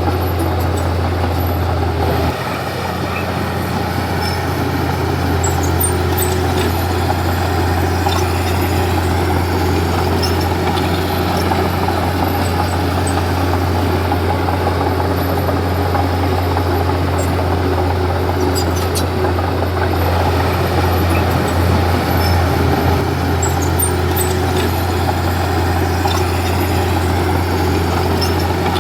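Komatsu D31P bulldozer's diesel engine running steadily with a deep hum, dipping slightly about two seconds in and building back up over the next couple of seconds, with faint scattered clicks.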